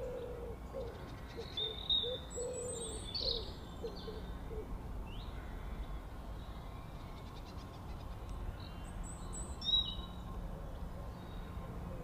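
Wild birds calling: short high chirps and whistles about two seconds in and again near ten seconds, with a run of short low notes in the first few seconds, over a steady low background rumble.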